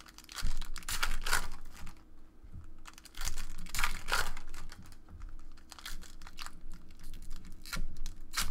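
Trading cards being handled and a foil card pack torn open by hand, heard as crinkling, rustling and clicking in several short bursts.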